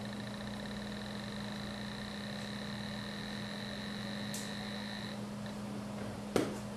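A high electronic tone that starts as fast beeping, merges into one held tone, and stops about five seconds in, over a steady low hum. A sharp knock near the end is the loudest sound.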